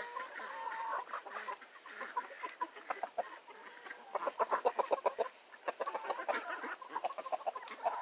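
Several backyard hens clucking as they peck at food, with a quick run of rapid clucks about four seconds in.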